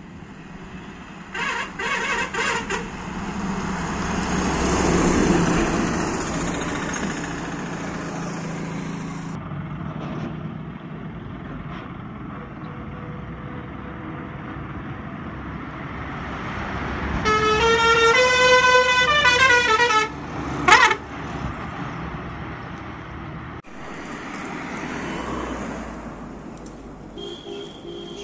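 Buses driving past with engines running and horns sounding: a few short honks near the start, then past the middle a long musical horn playing a tune of stepped rising and falling notes, followed by a sharp blast.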